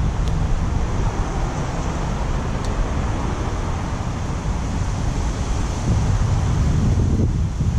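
Strong wind buffeting the microphone: a steady, gusting low rumble with a hiss above it.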